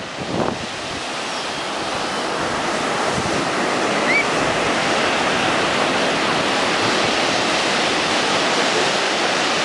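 Ocean surf breaking and washing up the beach. The rushing noise builds over the first few seconds, then holds steady.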